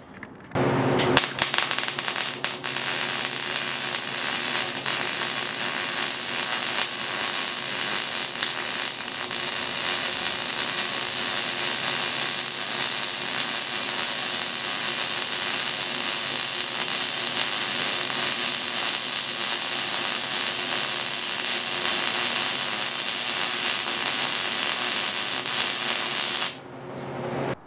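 MIG welding arc crackling and hissing steadily on a steel T-joint, with the gun weaving overlapping circles in a drag technique to bridge a gap. It starts about a second in and cuts off suddenly near the end.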